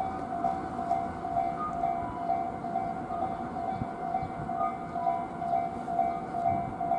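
Japanese railway level-crossing alarm ringing, an electronic clang repeating evenly about twice a second.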